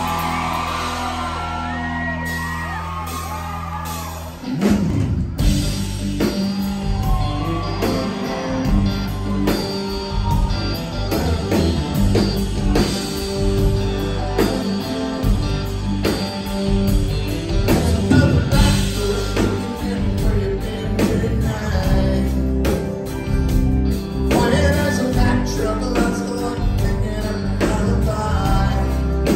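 A live country-rock band playing a song intro: a held low chord with audience whoops for the first few seconds, then about four and a half seconds in the full band comes in with drums, electric bass, acoustic guitar and keyboard.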